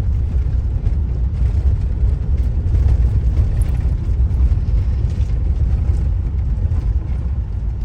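Steady low rumble of a vehicle driving slowly over a rough road under construction.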